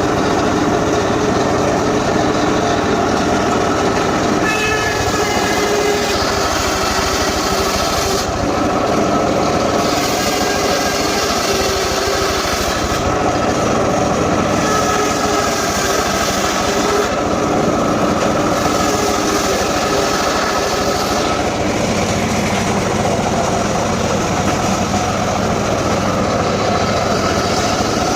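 Engine-powered saw running steadily while cutting gmelina timber, its pitch shifting slightly now and then as the load changes.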